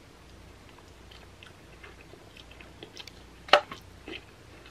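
Close-miked chewing of food, a run of soft wet mouth clicks with one sharp smack about three and a half seconds in.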